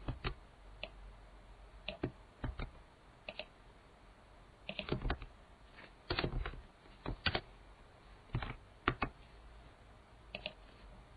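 Irregular keystrokes on an IBM computer keyboard: single taps and short runs of a few keys, with pauses between.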